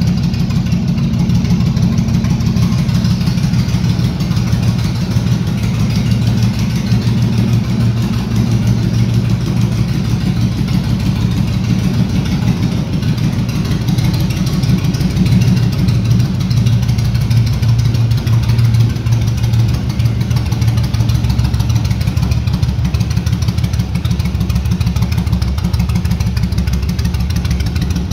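Yamaha Drag Star 1100's air-cooled V-twin idling steadily through aftermarket Cobra exhausts, with an even, deep bass note.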